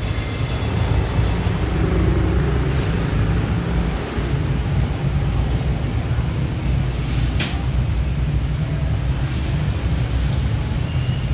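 Steady low rumble of street traffic, with a few sharp clicks, the loudest about seven seconds in.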